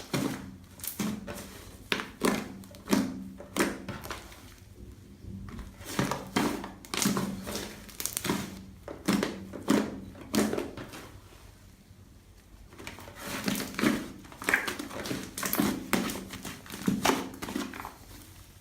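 Homemade toothpaste slime being squeezed and poked by hand, giving irregular sticky squelches and sharp clicks in bursts of several a second, with short pauses between.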